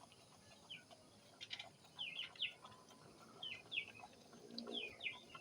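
Faint bird chirps: short falling peeps in twos and threes, repeating every second or so.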